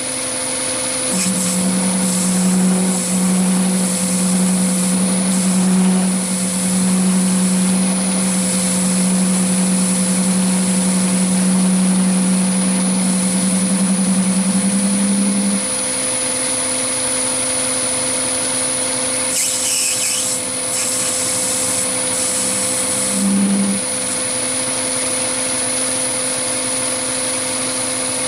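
Chinese mini lathe running with a steady hum and high whine while the tool turns brass stock. A deeper low hum stops about halfway through.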